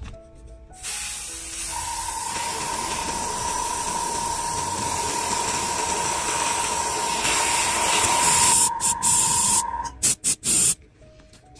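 Spray nozzle hissing steadily for about nine seconds with a steady whistle in it, then three short spurts near the end.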